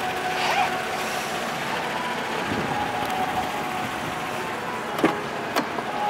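Steady mechanical hum, with two sharp clicks about five seconds in as the pickup's door handle is pulled and the door latch releases.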